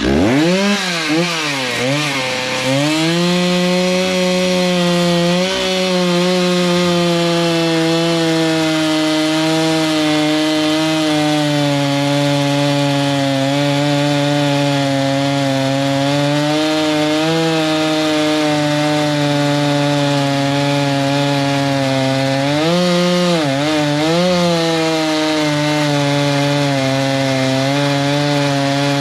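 Gas chainsaw revving up and then cutting through black oak, its engine held at high speed under load with slight wavering. The engine speed dips twice briefly about 23 seconds in.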